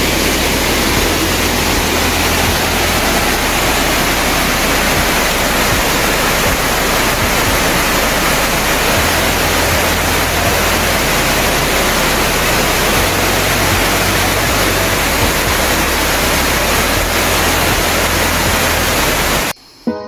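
Loud, steady rush of fast-flowing water over rocks. It cuts off suddenly near the end.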